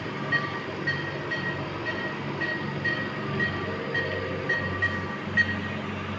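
Neonatal ventilator running in CPAP mode, a steady machine hum, with a short high beep repeating about twice a second over it.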